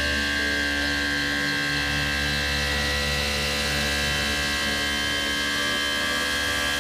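Tormach PCNC 1100 CNC mill's spindle running, its end mill cutting an aluminum disc: a steady, even machining whine with several high tones over a low hum.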